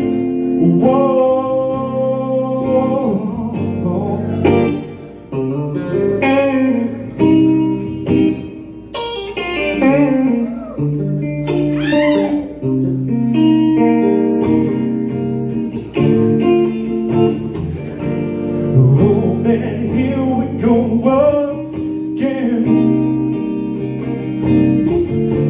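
Instrumental guitar break in a live song: a single guitar plays sustained chords with a melodic lead line over them, with bending notes.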